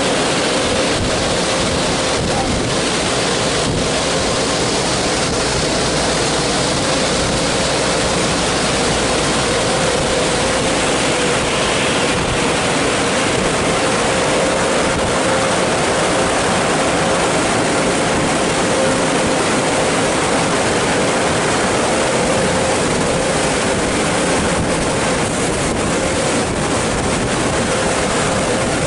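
Mark VII ChoiceWash XT automatic car wash running over a car: a steady rush of spraying water with a steady machine hum underneath.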